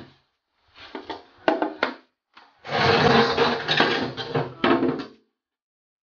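Plastic freezer drawers being pulled out of a frost-caked freezer compartment: a few sharp plastic knocks in the first two seconds, then a longer stretch of scraping and clattering as a drawer slides out along its runners.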